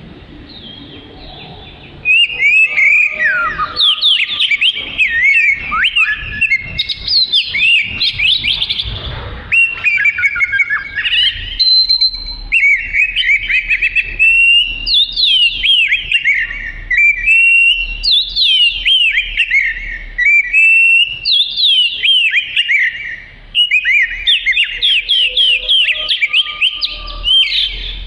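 Oriental magpie-robin (kacer) singing a loud, rapid, varied song of quick whistled notes sweeping up and down. It starts about two seconds in and runs in near-continuous phrases, with one short break about two-thirds of the way through.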